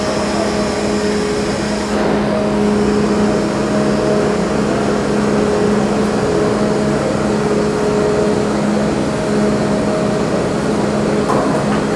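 Steady, loud machinery drone with a constant low hum, typical of a car ferry's engines and ventilation running while berthed.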